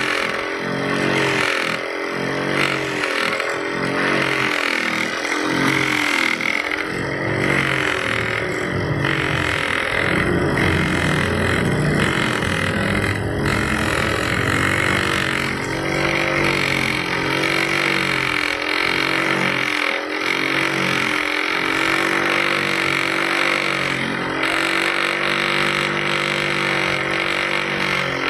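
Electric grinder running with a rubber shock-absorber bushing pressed against its grinding wheel to trim it down. The motor's pitch wavers up and down as the pressure on the wheel changes.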